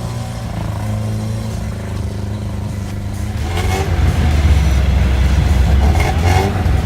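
Lada Niva (VAZ-2121) four-cylinder engine running under load off-road, getting louder and heavier about halfway through as it pulls harder.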